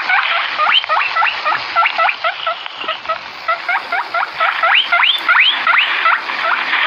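A crowd of small animals calling, many short rising squeaks overlapping in a steady chatter.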